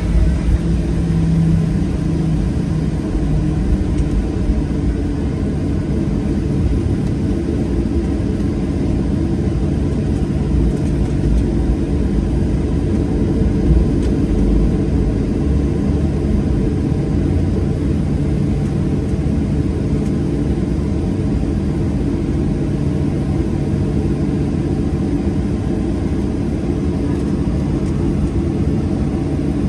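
Boeing 737-800's CFM56 turbofan engines running during the takeoff: a loud, steady low rumble with a steady hum, holding an even level throughout.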